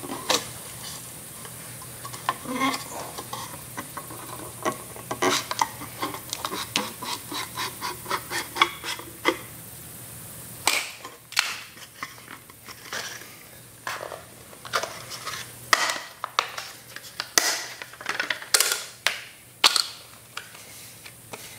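Utility knife blade scoring a strip of hard plastic: a quick run of short, even scraping strokes, then louder, sharper clicks and cracks in the second half as the cut is worked through.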